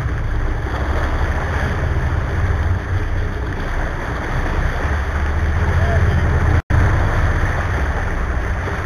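Sportfishing boat's engines running with a steady low rumble, under the rush of water along the hull and wind. The sound drops out completely for an instant about two-thirds of the way through.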